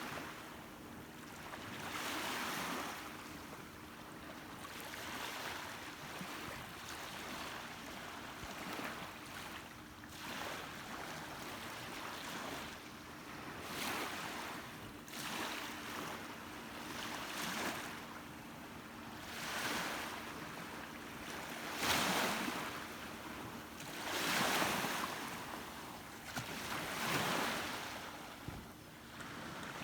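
Sea waves washing and surging every few seconds, with wind on the microphone and a faint steady low hum beneath.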